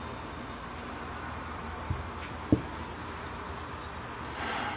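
Crickets chirping in a steady high trill, with two light knocks about two and two and a half seconds in, the second louder, as the carburetor body is handled.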